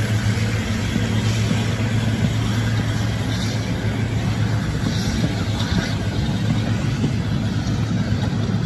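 Diesel locomotive's engine working hard as it hauls a passenger train up a steep 1-in-36 incline, a steady low drone, with the coaches rolling past on the rails.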